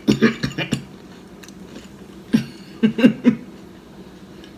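A person eating crunchy churro cereal: two clusters of crunching and mouth sounds, one at the start and one around three seconds in, mixed with short throat noises as the cinnamon catches in the throat.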